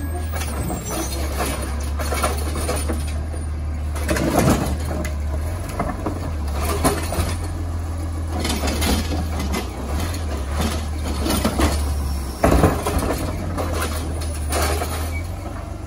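Recycling truck's engine running steadily, with several scattered clinks and clatters of glass and cans.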